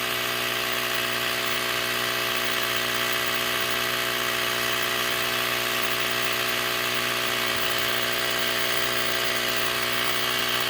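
Small electric air compressor (tire inflator) running with a steady, unchanging motor hum and buzz. It is pumping up a flat four-wheeler tire that is still only at a few psi.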